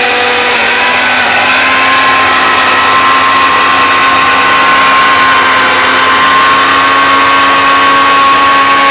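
A 1200-watt Jaipan mixer-grinder motor runs steadily at full speed, grinding cumin seeds to powder in its small stainless-steel dry-grinding jar. It is a loud, even motor whine over the rushing of the seeds.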